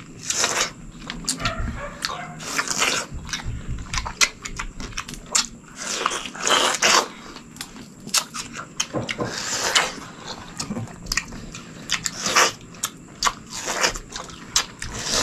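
Two people biting into and chewing juicy yellow watermelon slices close to the microphone. Wet crunches and mouth noises come with many sharp clicks, and with louder noisy bites every couple of seconds.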